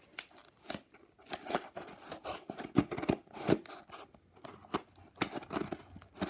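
A package being opened by hand: a run of sharp, irregular clicks, snips and rustles of packaging.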